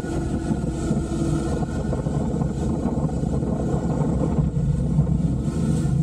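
Motorcycle engine running steadily at road speed, mixed with a rush of wind noise.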